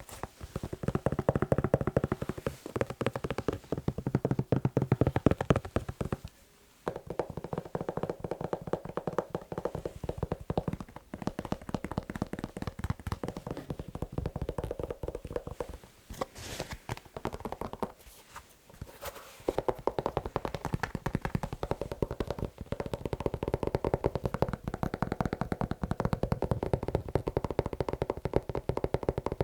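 Fast tapping and scratching on a shoe: a dense run of quick taps that breaks off briefly twice, once about six seconds in and again for about a second near the middle.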